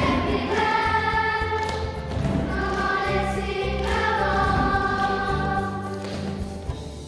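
Children's choir singing long held notes together over instrumental accompaniment with a steady bass line; the singing falls away near the end.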